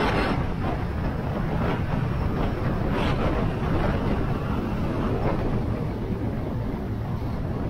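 Motorcycle engine running steadily on the move, a continuous low rumble, with wind rushing over the microphone in a few brief gusts.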